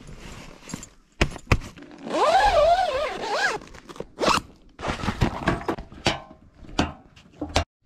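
Packing-up sounds: a zipper drawn in a wavering rasp for about a second and a half, about two seconds in, among scrapes, canvas rustling and several sharp thunks of gear being stowed.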